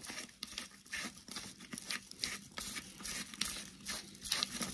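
Black pepper being added by hand over a bowl of crushed garlic and dry spices: quiet, irregular dry crackling and rustling, a few ticks a second.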